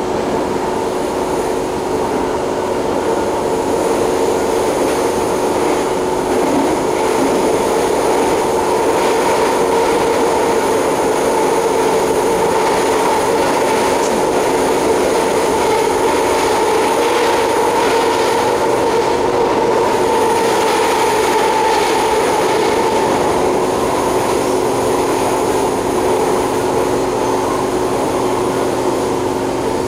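SMRT C151A metro train running, heard from inside the carriage: a steady rolling noise of wheels on rail with a few constant tones over it.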